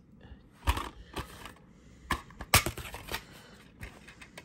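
Green plastic DVD case being handled and opened: a series of short plastic clicks and knocks, the loudest about halfway through.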